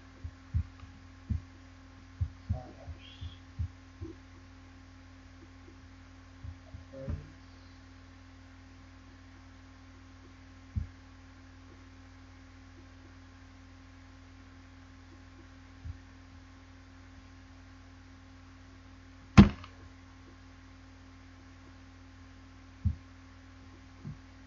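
Steady low electrical hum with scattered short clicks and thumps, as from working a computer's mouse or touchpad. There is a quick run of them in the first few seconds and one much louder thump about 19 seconds in.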